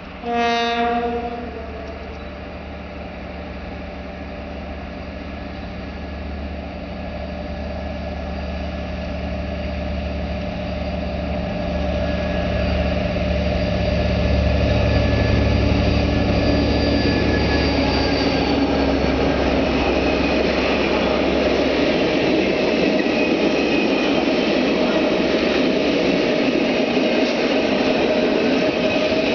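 Diesel locomotive horn sounds one blast of about a second at the start: the Rp1 'attention' signal. Then the rumble of the M62 diesel locomotive's two-stroke V12, with a TEM2 diesel behind it, grows steadily louder as the coal train approaches. From about 20 seconds in, the open freight wagons roll past with a steady wheel-on-rail clatter.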